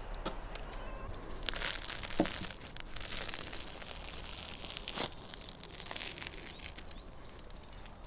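A round, crusty loaf of bread being torn apart by hand, the crust crackling and crunching, with a few sharp cracks as it breaks. The crackling is loudest in the first half.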